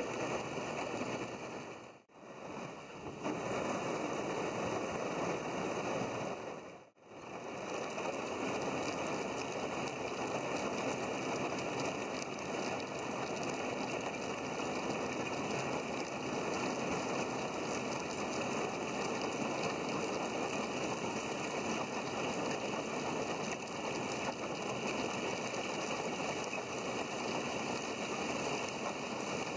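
Outboard motor of a small aluminum boat running steadily while the hull pushes through thin, broken lake ice, with water rushing past. The sound cuts out briefly twice in the first seven seconds.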